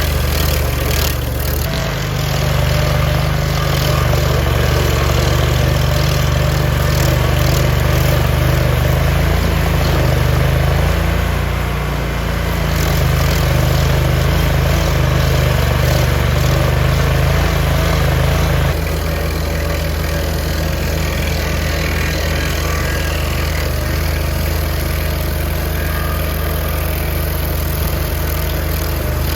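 A large engine running steadily with a deep drone. About two-thirds of the way through the sound changes abruptly to a slightly different engine note.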